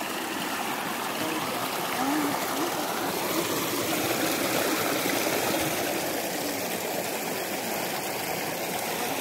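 Small hillside stream splashing and trickling over a pile of rocks: a steady sound of running water.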